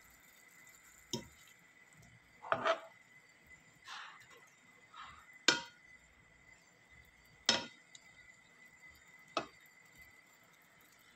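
A cooking utensil knocking and scraping against a pan as chicken pieces are moved around in sauce: several separate clinks, a second or two apart.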